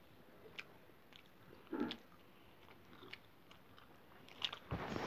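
Quiet mouth noises of chewing noodles, with scattered small clicks and a brief louder burst about two seconds in. A louder rush of noise starts near the end.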